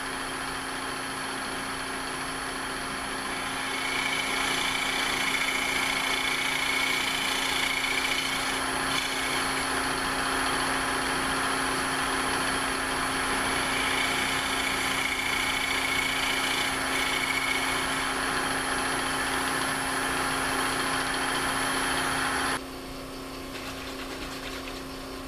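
Powermatic 3520 wood lathe running with a steady hum and a high whine while a round nose scraper cuts the foot of a spinning walnut bowl, a light scraping that comes and goes. Near the end the whine and scraping cut off abruptly, leaving a lower steady hum.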